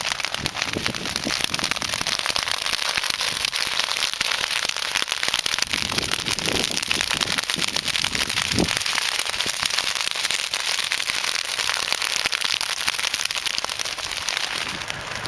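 Dry prairie grass burning: a dense, continuous crackling and popping of the flames, steady throughout.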